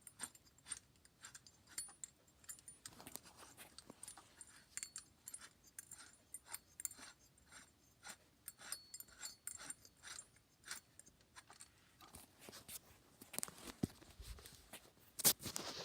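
Hunter Coastal Breeze Plus ceiling fan's housing being screwed back on by hand: faint, irregular small clicks and scrapes of metal parts turning and knocking together, a few a second, growing busier near the end.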